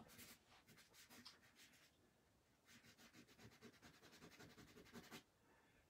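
Quick, faint strokes of a drawing stick scratching across gesso-coated paper, in two runs of rapid back-and-forth marks with a short pause between them.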